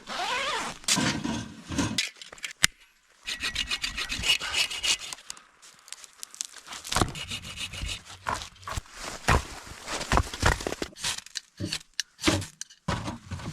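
Hand saw cutting wood for the stove, in stretches of quick back-and-forth strokes broken by short pauses.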